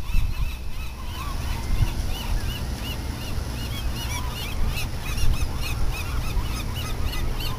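A chorus of sea lions barking: many short, overlapping rising-and-falling honks, several a second, with no pause. Wind rumbles on the microphone underneath.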